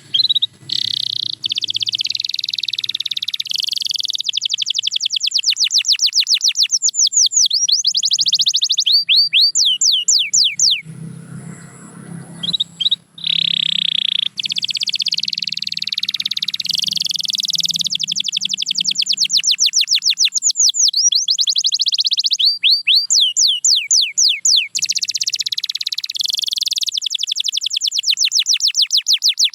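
Domestic canary singing long, rapid trills and rolls of repeated notes, breaking off briefly near the middle before carrying on.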